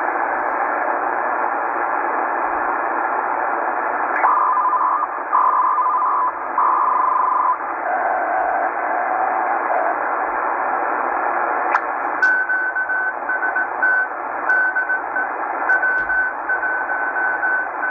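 Shortwave receiver in lower sideband being tuned across the 80 m amateur band: a steady hiss of band noise, with a few short steady tones as the tuning passes signals. About twelve seconds in, Morse code keyed at one steady pitch comes through: the W1AW station sending code practice.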